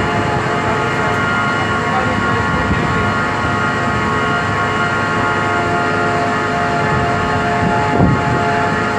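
Steady engine drone, a constant hum of several fixed tones over a noisy rumble, with a brief thump about eight seconds in.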